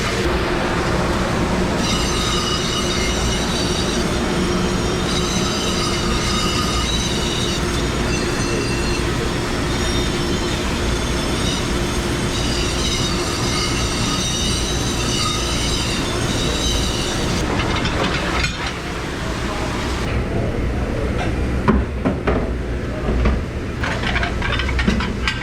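Commercial kitchen machinery running with a steady hum and a high-pitched squealing whine that stops partway through. Toward the end it gives way to dishes and utensils clattering.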